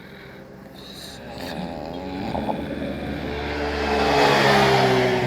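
A sleeping person snoring: a rough, rattling snore that swells over a few seconds and is loudest near the end, its pitch sinking slightly.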